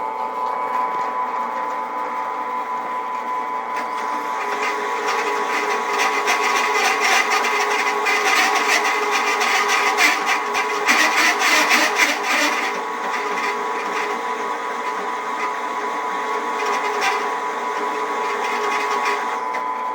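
Drill press running with a steady whine while the bit cuts into oiled metal. The harsh cutting noise builds from about four seconds in, is strongest until about twelve seconds in, then eases. The press is running after its top nut was tightened, which the owner takes to have solved its problem.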